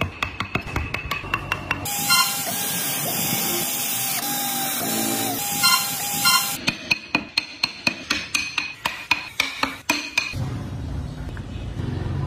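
Cordless drill boring into wood, a steady motor whine over cutting hiss, running for about four and a half seconds in the middle. Before and after it come quick, even tapping clicks.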